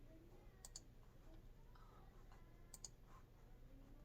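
Faint clicks of a computer mouse, two quick double clicks, about a second in and near three seconds, over near-silent room tone.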